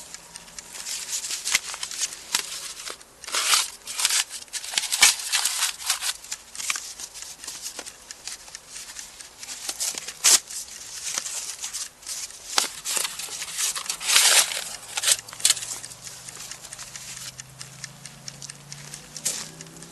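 Irregular rustling and crinkling bursts with occasional sharp clicks, like things being handled at close range. A faint low drone rises in about three quarters of the way through.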